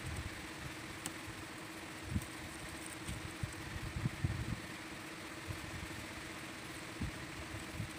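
Air compressor running steadily with a constant motor hum, while the airbrush hisses air and paint. A few short low thumps come and go.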